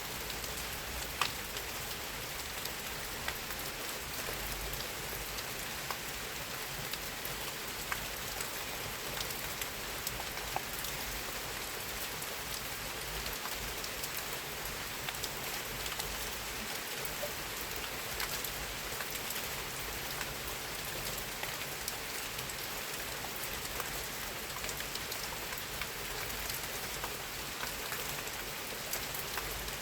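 Steady rain falling on a surface, an even hiss with many small drop ticks scattered throughout and one sharper drop about a second in.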